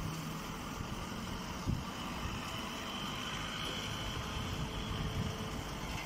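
Small hydraulic hay baler and its feed conveyor running, a steady motor hum with a brief knock a little before two seconds in.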